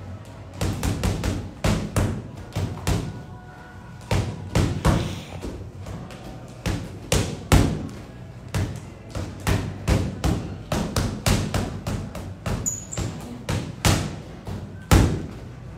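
Boxing gloves landing quick flurries of punches on a free-standing punching bag: a fast, uneven run of thuds in combinations with short pauses, during an all-out burnout round.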